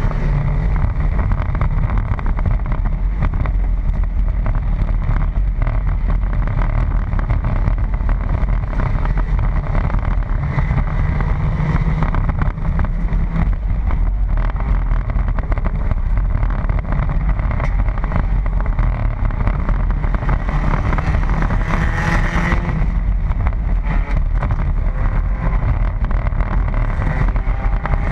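Pontiac Sunfire enduro race car's engine running hard under racing load, heard inside the cabin as a dense, loud, steady rumble mixed with road and wind noise. A little past twenty seconds its pitch climbs as it revs up.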